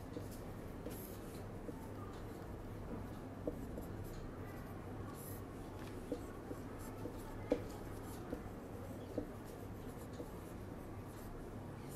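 Marker pen writing on a whiteboard: faint scratching strokes with a few light, sharp taps, over a steady low hum.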